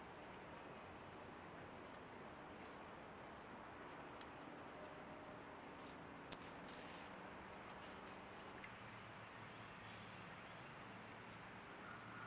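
A small animal's high, short chirp, falling slightly in pitch, repeated about every second and a quarter, about eight times, with the loudest near the middle and a longer gap before a fainter last one near the end. Underneath is a faint steady hiss and a thin, high steady whine.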